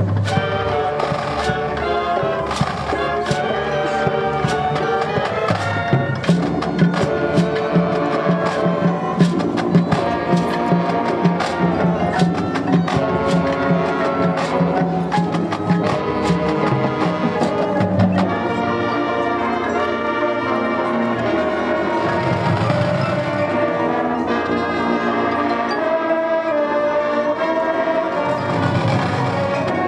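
High school marching band playing its field show: brass sections holding chords over rapid, dense drum line strikes. About two-thirds of the way in the drumming thins and the brass sustains long chords, swelling twice near the end.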